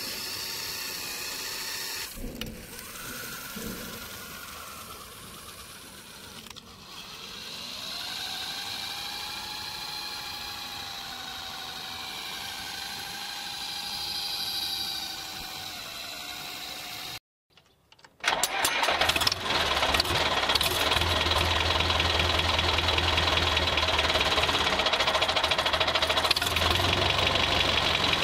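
Small electric motor and gearbox of a toy RC rock-crawler car whining, rising and falling in pitch as the wheels spin in loose sand. After a brief break about 17 seconds in, a louder, steady mechanical drone with a low hum and a rattle takes over.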